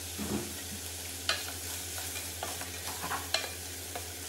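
Green beans and carrots sizzling in hot oil in a large metal pot, stirred with a wooden spatula that gives a few sharp scrapes and knocks against the pot, about a second in and again past three seconds.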